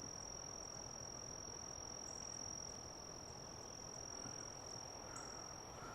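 Insects trilling in one steady high tone, faint, over a soft even outdoor hiss.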